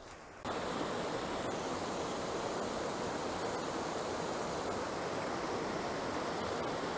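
Mountain river rapids rushing over boulders: a steady, even rush of water that starts abruptly about half a second in.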